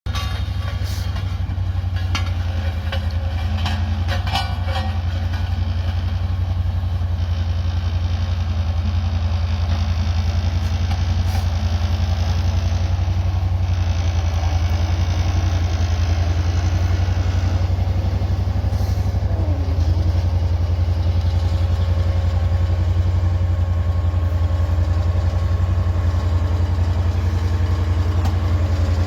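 Diesel engine of a small vibratory tandem road roller running steadily with a deep, even hum, with a few short knocks in the first few seconds.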